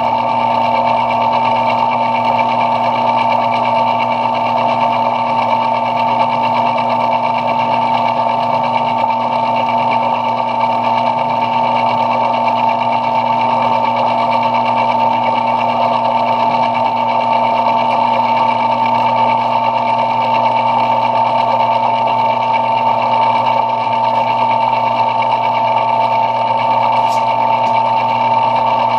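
Belt-driven metal lathe running steadily while turning brass stock, a constant machine hum with a steady high tone over it.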